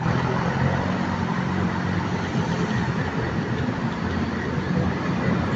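Road traffic with the steady drone of a heavy truck's diesel engine as the truck approaches.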